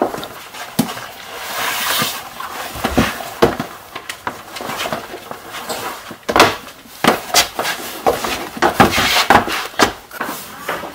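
Rustling and scattered knocks of people getting up and moving about, handling things as they go.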